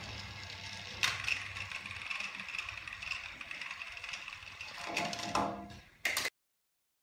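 Battery-powered TrackMaster toy train motors whirring with a ratcheting gear clatter, with a sharp knock about a second in as the two engines meet and push against each other. The sound swells shortly before it cuts off abruptly about six seconds in.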